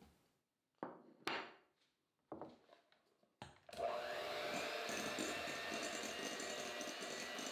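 A few short knocks and scrapes as butter cubes are added with a spatula, then an electric hand mixer starts about three and a half seconds in and runs steadily, its beaters whipping the butter into Italian meringue for buttercream.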